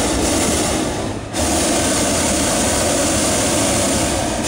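Hot-air balloon propane burner firing, a steady loud roar that breaks off briefly about a second in and then fires again, heating the air in the envelope.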